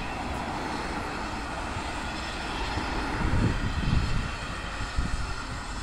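Distant train approaching slowly, a steady mechanical drone, with wind buffeting the microphone in several low thumps in the second half.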